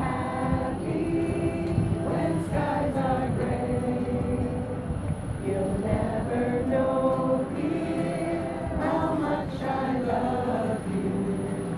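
A crowd of people singing together, many voices holding long notes in a slow tune.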